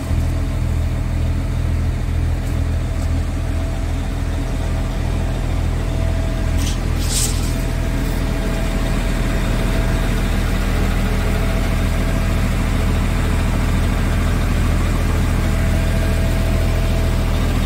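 Scania S tractor unit's diesel engine idling steadily, a deep even drone, with a brief hiss about seven seconds in.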